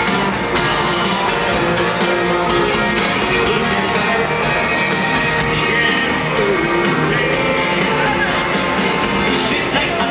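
A live country band playing amplified music with guitars, heard from within a stadium crowd.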